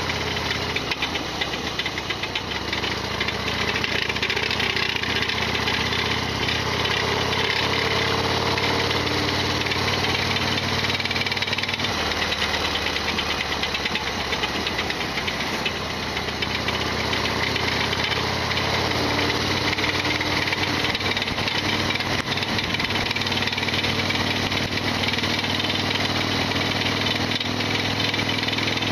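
Harley-Davidson Sportster XL1200R's air-cooled V-twin engine running under way, its pitch stepping up and down a few times, with a loud mechanical rattle and clatter that the owner calls a tremendous abnormal noise.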